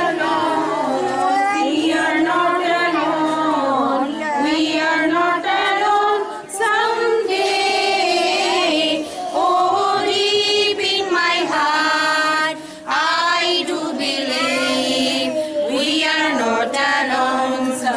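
A group of children and women singing together, one melody carried in long sung phrases with a few brief breaks between them.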